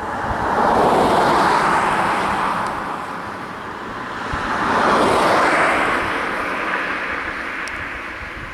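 Two vehicles passing close by on a road, one after the other, the tyre and engine noise of each swelling up and then fading away.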